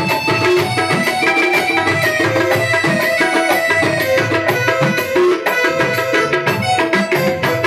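Tabla and electronic keyboard playing qawwali-style Sufi devotional music: quick, steady tabla strokes under a sustained keyboard melody.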